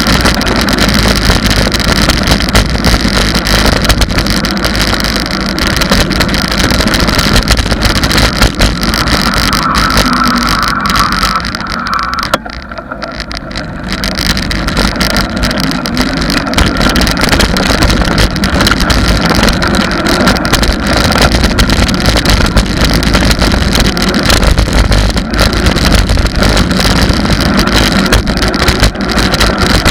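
Wind buffeting the microphone of a camera mounted on a moving bicycle, a loud steady rush with rattling from the road surface. It eases for a couple of seconds about twelve seconds in as the bike slows at a junction, then builds again.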